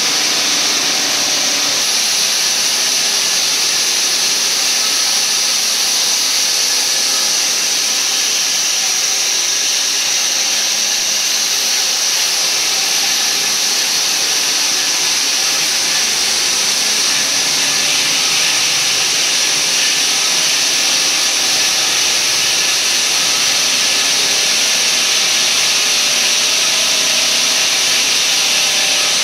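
Plate sawing machine running: a loud, steady high-pitched hiss that never changes.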